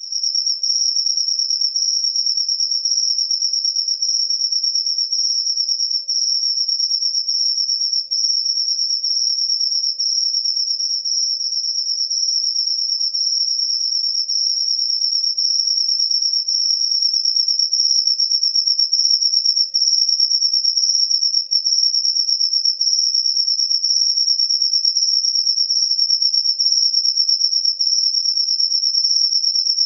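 Crickets chirring in a steady, unbroken high-pitched trill.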